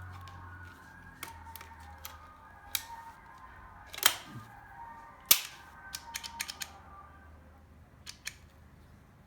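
Lanber 12-gauge over-under shotgun being handled after assembly: a series of sharp metallic clicks and clacks, the loudest about five seconds in, with a quick run of lighter clicks just after.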